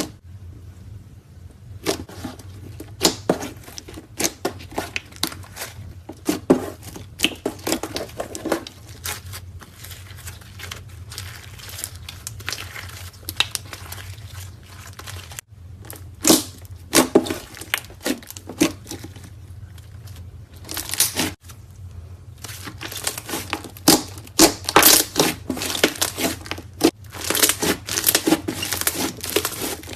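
Slime being squeezed and stretched by hand, giving dense runs of crackling, popping sounds in clusters with short pauses, over a steady low hum.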